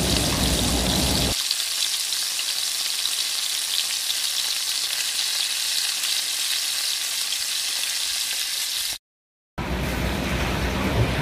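Marinated boneless fish pieces deep-frying in hot oil in a wok, a steady sizzle during the first (half) fry. It is broken by a sudden half-second silence about nine seconds in.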